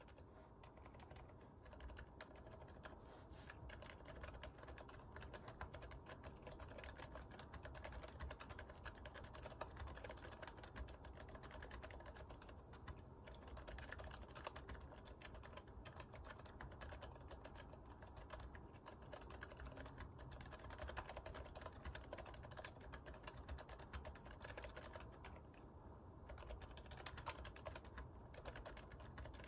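Continuous typing on a GMMK Pro mechanical keyboard fitted with Boba U4 tactile switches: soft keystrokes come several a second without a break.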